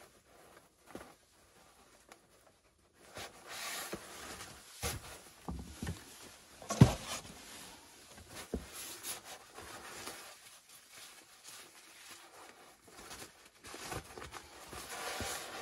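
Nylon fabric rustling and crinkling as an inflatable sleeping pad and a stuff sack are handled, with scattered small knocks and one sharper knock about seven seconds in. The first few seconds hold only a few faint clicks.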